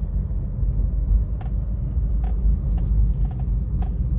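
Inside a Suzuki Baleno with the car running: a steady low rumble, with a few sharp clicks from the steering column as the wheel is turned. The clicking is the customer's steering complaint, which is traced to the column's gear having lost its grease.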